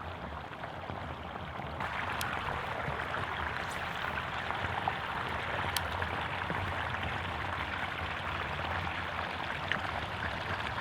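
Steady rushing of water pouring over a small spill-off waterfall.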